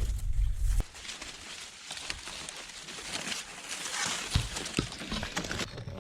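Corn leaves and stalks rustling and crackling in many small ticks as someone pushes through a cornfield. A low rumble of wind on the microphone cuts off under a second in.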